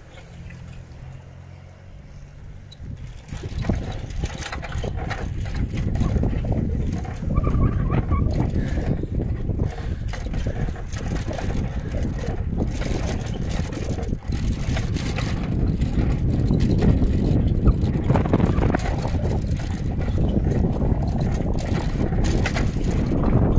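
Wind buffeting the microphone of a camera carried on a moving bicycle, a rough low rumble that grows much louder about three seconds in and stays loud. A faint low steady hum is heard at first.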